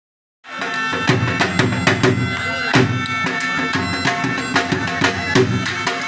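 Background music in a traditional folk style: a sustained drone with regular drum strokes over it, starting about half a second in.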